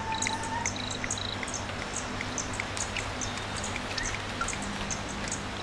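Crickets chirping: short pulsed chirps and high ticks repeating about twice a second over a steady hiss.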